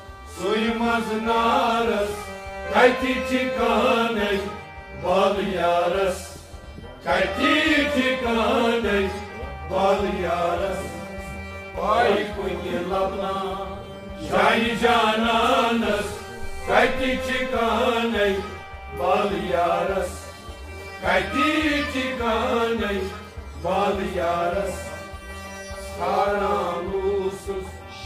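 Live Kashmiri Sufi devotional song (sufiyana kalam): a melodic vocal line sung in phrases of a second or two, with harmonium and stringed instruments accompanying.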